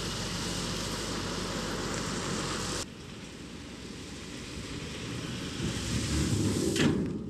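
Outdoor machinery noise with wind on the microphone, which cuts off abruptly about three seconds in. Then an engine rumble grows louder, with a short clatter near the end.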